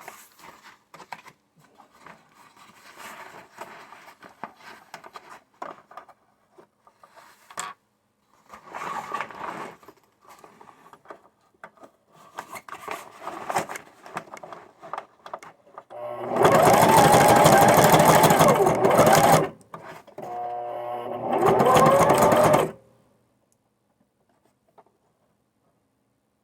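Sewing machine with a walking foot stitching heavy fabric with heavy thread. After quieter, scattered sounds for the first half, it runs loud and fast for about three seconds, slows briefly to a lower hum, runs fast again, and stops near the end; the owner feels the machine is struggling with the heavy material.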